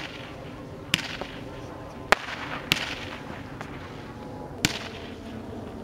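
Amey "Skan" firework battery firing single shots: four sharp bangs at uneven intervals, each with a short echoing tail.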